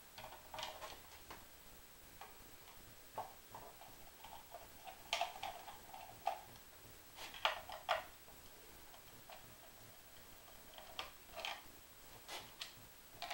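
A screwdriver working the screws of the rewind (recoil starter) on a 1959 Evinrude Fastwin 18 hp outboard: irregular light clicks and metal clinks as the starter is unscrewed and freed from the powerhead.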